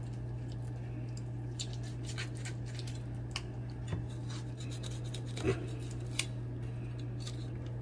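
Kitchen knife cutting a raw chicken leg quarter on a wooden cutting board, separating the meat from the bone: scattered small clicks and scrapes of the blade, a few a little louder about four, five and a half and six seconds in, over a steady low hum.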